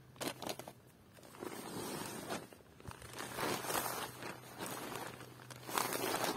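Rustling and shuffling of tent nylon and groundsheet as a person shifts position and lies back, in irregular bursts, with a few light clicks near the start.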